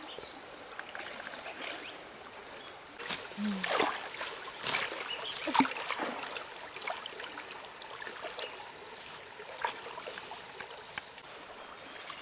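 Shallow river water splashing and sloshing as people wade and grope with their hands along the bank, with a run of louder splashes a few seconds in.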